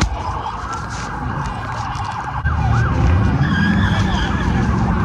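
Sirens wailing in swooping tones over a low rumble, which gets louder about two and a half seconds in.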